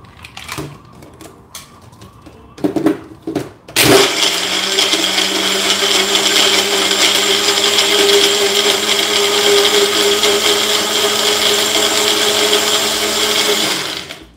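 A Vitamin Bullet personal blender's cup clicks and clatters as it is handled and pressed onto the base. About four seconds in the motor starts and runs steadily for about ten seconds, blending boiled beetroot and water into a purée, then stops shortly before the end.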